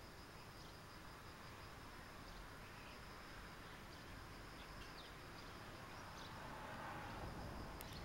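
Faint garden ambience: a thin, steady high insect trill with a few faint chirps over it, and a soft rustle building near the end.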